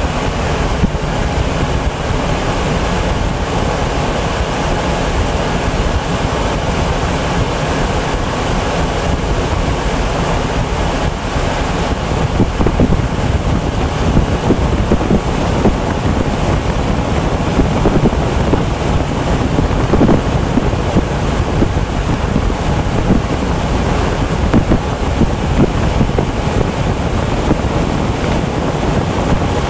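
Industrial centrifugal fan running, a loud, steady rush of air that grows a little louder and rougher about twelve seconds in.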